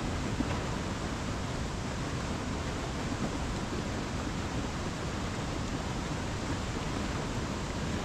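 Steady rushing of a flooded river, swollen with monsoon floodwater, pouring through rapids over boulders.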